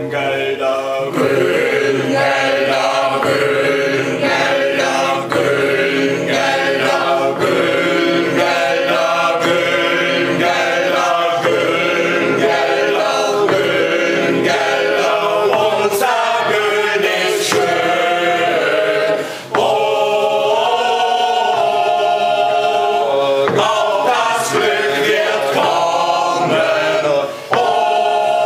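A small mixed choir of men's and women's voices singing together under a conductor, in long held notes, with two short breaks between phrases, about two-thirds through and near the end.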